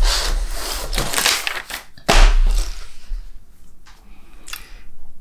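Rustling, crumpling handling noise close to the microphone, with a sudden bump about two seconds in.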